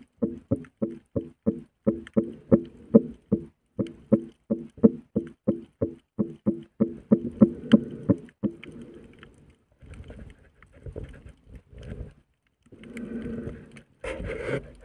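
Longhorn cowfish held underwater, giving an even train of short low pulses, about four a second, that turn looser and noisier about two-thirds of the way through. A brief louder burst of noise comes just before the end.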